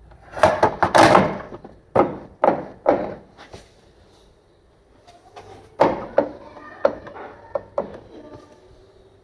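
A series of sharp knocks and thuds of hard objects: a tight cluster in the first second or so, three more about half a second apart, then after a pause a run of lighter knocks.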